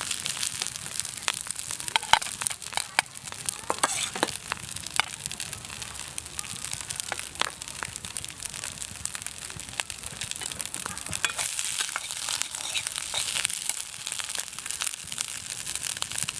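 Meat sizzling on a grill over a wood fire: a steady sizzle with frequent sharp crackles and pops.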